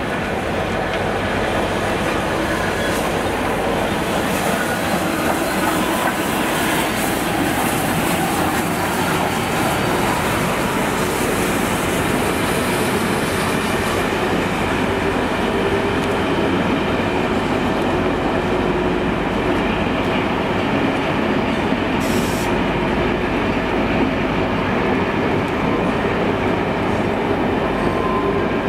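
Steam locomotive 34046 Braunton, a rebuilt Bulleid West Country class Pacific, pulling away with its train. Its coaches then roll steadily past, with a clickety-clack of wheels over rail joints and pointwork.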